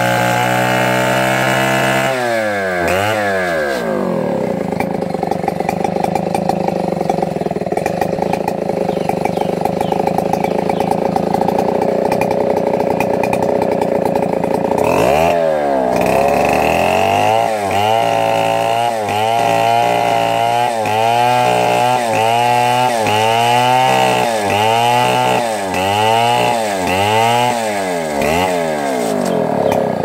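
Stihl chainsaw engine running at high revs, then dropping to a lower steady speed about two seconds in. From about halfway through it is revved up and down again and again, about once a second.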